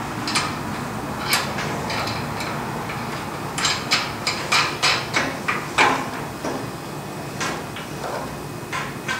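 Steel M10 carriage bolts, flange nuts and a winch plate bracket clinking and knocking against a steel bumper as they are fitted by hand. A quick run of sharp metallic clicks comes in the middle.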